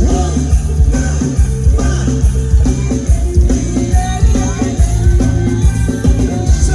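A live Thai rock band playing an instrumental passage through a loud PA system: a guitar melody over bass and drums with a steady beat.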